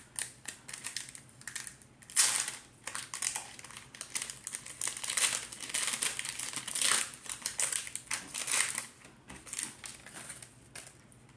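A foil Pokémon card booster pack crinkling and crackling as it is opened by hand, in irregular bursts with the loudest about two seconds in.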